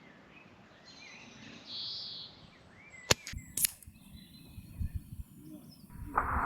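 AirMaks Katran air rifle fired, two sharp cracks about half a second apart, then a louder rushing noise of about a second near the end.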